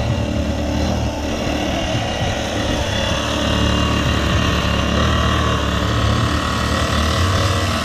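Small single-cylinder gas engine of a homemade go-kart running as the kart drives along, getting a little louder about three seconds in.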